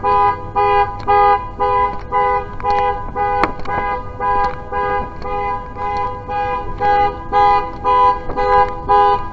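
Car alarm sounding the car's horn over and over, a steady two-note honk repeating about twice a second.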